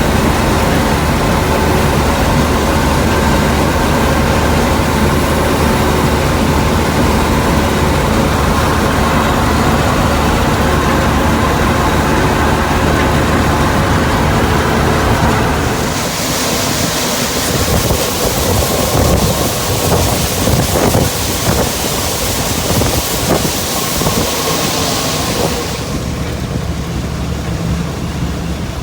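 Combine harvester running steadily during soybean harvest, its engine giving a constant low hum. For about ten seconds past the middle the low hum drops back under a loud, even hiss, and then the steady engine sound returns.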